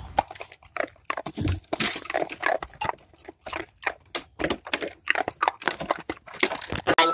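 A dog biting and crunching icicles: an irregular run of sharp crunches and clicks, in quick clusters.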